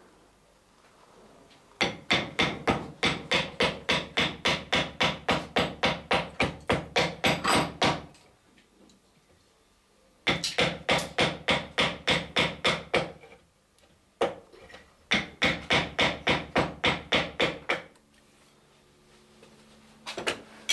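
Block plane cutting across the end of two clamped wooden boards in short, rapid strokes, about four a second, in three runs with pauses between.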